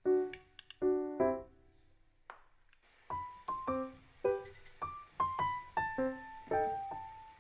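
Background piano music: a light melody of single struck notes that pauses briefly and picks up again about three seconds in.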